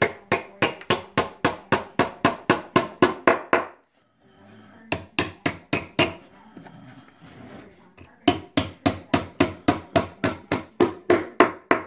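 Small hammer tapping a nail into a thin wooden board, in quick light strikes about four or five a second: a long run, a short pause with a few strikes, then another long run.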